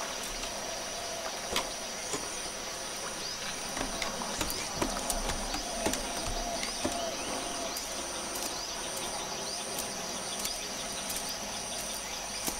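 Outdoor insect ambience: a steady high insect drone with an evenly pulsing higher chirp, and a few light knocks and creaks as people move about in a wooden rowing boat.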